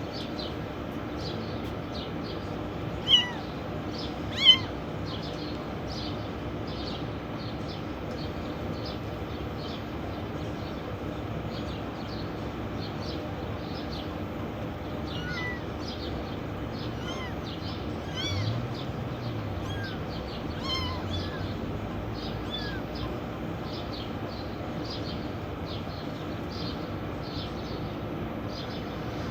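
Kittens meowing: two loud, high, short meows a few seconds in, then scattered quieter meows. Many short high chirps run throughout over a steady background noise.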